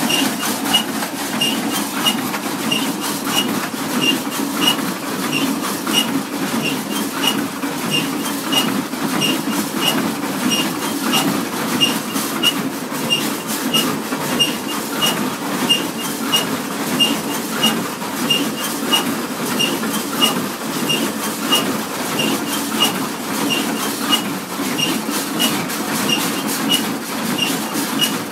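Hay baler running steadily, a rhythmic mechanical clatter with a sharp click repeating about twice a second over a continuous drone.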